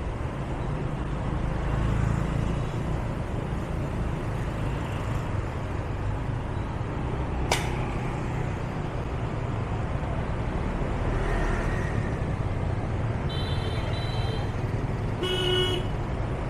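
Steady city road traffic heard on the move, with vehicle horns beeping twice near the end, the second louder. A single sharp click about halfway through.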